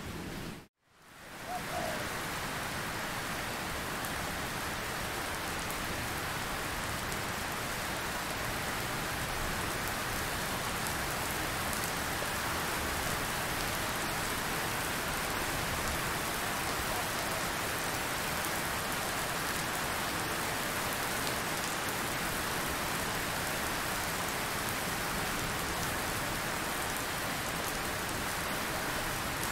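Steady rain sound from a nature-sounds background track. It drops out briefly just under a second in, then fades back in and runs on evenly.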